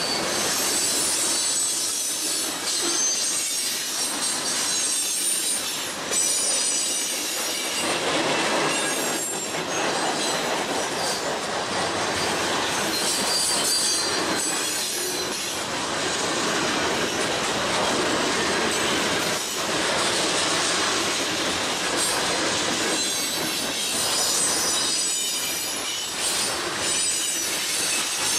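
Freight cars of a passing freight train rolling by: a steady rumble and clatter of steel wheels on the rails, with high-pitched wheel squeal coming and going.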